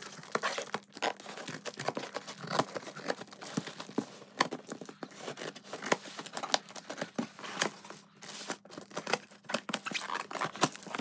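Scissors cutting and tearing through layers of brown plastic packing tape on a cardboard box: an irregular run of crackles, rips and crinkles.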